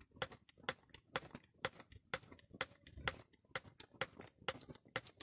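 Hand grease gun being pumped into a grease fitting on a combine harvester: faint, even clicks about twice a second from the pump strokes.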